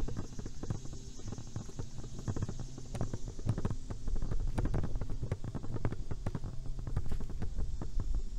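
Footsteps and knocks of a handheld camera being carried, a run of irregular sharp clicks over a low steady hum.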